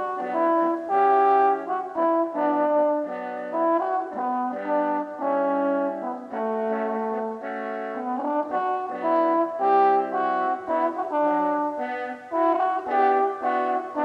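Several French horn parts layered by multitrack recording, playing a song arrangement in harmony: held chord notes under a moving melody, with the notes changing every half second to a second.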